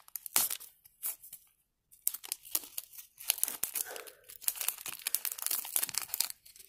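A shiny foil sticker packet being torn open slowly and its wrapper crinkling: irregular crackles, a short pause about a second in, then denser crinkling.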